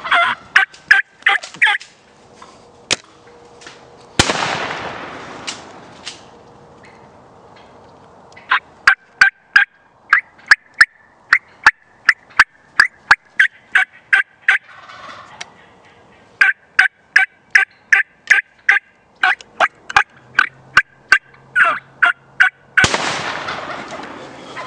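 Wild turkey toms gobbling: a rattling gobble near the start, another about four seconds in and one near the end. Between them come long runs of quick, sharp turkey calls, about three a second.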